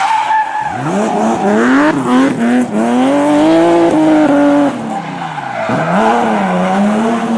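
Engine sound revving up and down. Its pitch climbs about a second in, holds, falls, and climbs again near the end.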